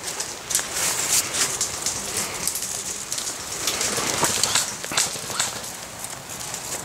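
Irregular footsteps crunching and rustling through wet ground and undergrowth, with light rain hissing.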